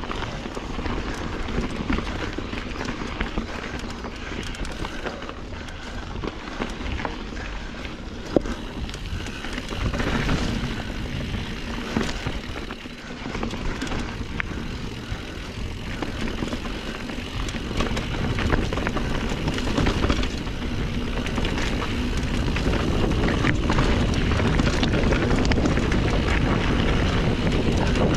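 Norco Sight A2 mountain bike ridden along a rocky dirt single track: wind rumbling on the camera microphone, with tyre noise and frequent rattling clicks and knocks from the bike over rough ground. The wind rumble grows louder and steadier over the last third as the speed picks up.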